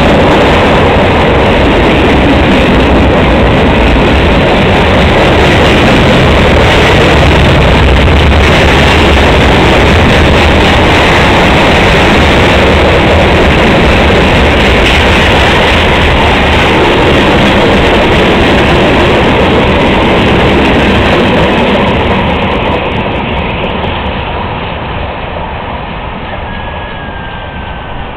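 Freight cars of a passing CSX train rolling by close up: a loud, steady rumble of steel wheels on the rails. It fades over the last several seconds as the end of the train passes and moves away.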